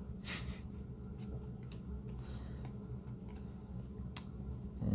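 Cardboard trading cards being handled and slid against each other: light rustling and a few soft clicks over a steady low hum.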